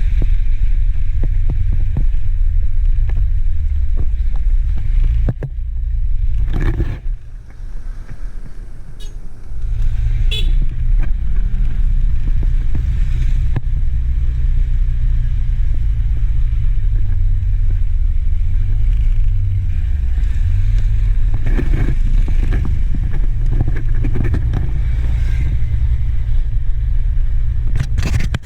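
Steady low rumble of a motor vehicle on the road, easing off briefly about seven seconds in and then coming back.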